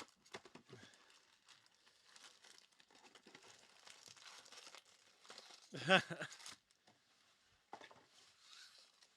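Foil trading card pack wrappers crinkling and tearing as packs are opened, with small clicks of cards being handled. A short wordless vocal sound about six seconds in.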